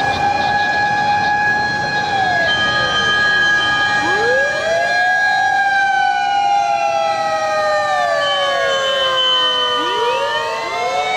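Fire truck sirens wailing, several at once: each climbs quickly to a high held note, holds it, then slides slowly down. They wind up again about four seconds in and near the end.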